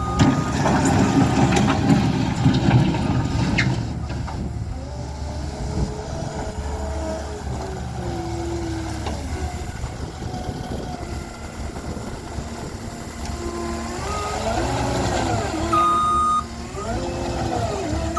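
Caterpillar 236D skid steer loader's diesel engine running, its pitch rising and falling as it revs, with clattering in the first few seconds. About three-quarters of the way through, its backup alarm beeps.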